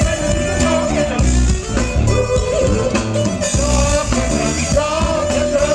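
Live funk band playing with singers on vocals over bass, drums and electric guitar, with a heavy bass pulse about once a second.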